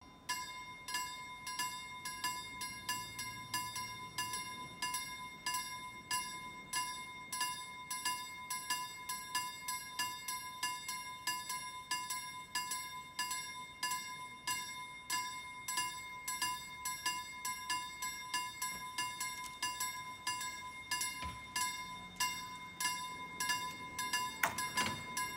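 KLD-43 mechanical level-crossing bells ringing, struck rapidly and evenly with a steady ringing tone between strikes: the crossing's warning that a train is approaching.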